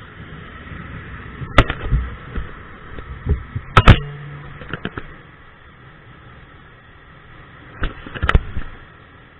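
Several sharp knocks and bumps on the camera: one about a second and a half in, the loudest pair near four seconds, and a cluster near eight seconds. Behind them is the steady noise of a 50cc scooter riding, with wind.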